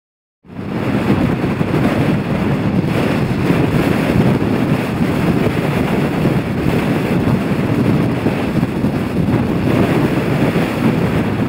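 Gale-force wind blasting straight onto the camera microphone: a loud, steady, rumbling buffeting that starts suddenly about half a second in.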